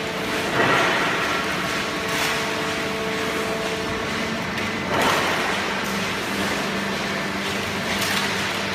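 Hydraulic cardboard baling press running: a steady machine hum with faint steady tones. Two louder rushing surges come about half a second in and about five seconds in.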